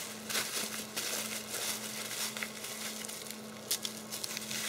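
Bubble wrap crinkling and crackling as it is pulled off steel rods by hand, with a steady low hum underneath.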